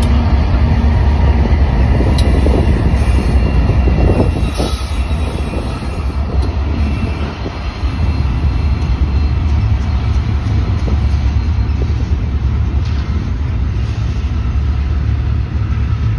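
Freight train passing close by: BNSF and Norfolk Southern diesel locomotives run past with a loud, steady low rumble, then the double-stack container cars roll by on the rails.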